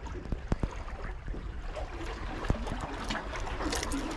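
Sea water washing and trickling among breakwater rocks, with a low rumble underneath. A few sharp clicks and a cluster of crisp ticks near the end come from hands handling a fishing lure and line.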